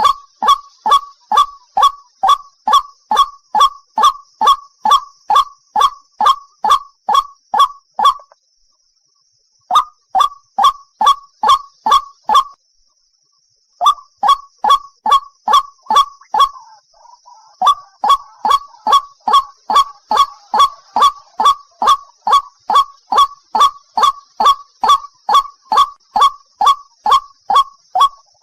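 White-breasted waterhen (ruak-ruak) calling: a loud, monotonous string of short 'kwak' notes, about two to three a second, broken by two short pauses about a third and halfway through. A faint steady high hiss runs underneath.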